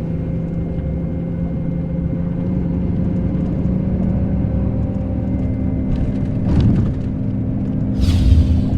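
Scania K380 coach's diesel engine running steadily as the bus pulls in, with two brief bursts of noise over it, one about six and a half seconds in and one near the end.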